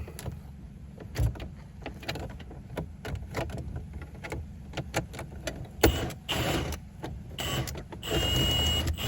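Hand tool turning a stubborn screw through a flexible extension: short, uneven clicks and ticks over a steady low rumble. Near the end comes a louder rasping stretch with a thin high tone, lasting about a second and a half.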